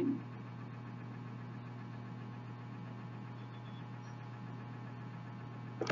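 Steady low electrical hum with a faint hiss, mains hum picked up by the recording, with one brief click just before the end.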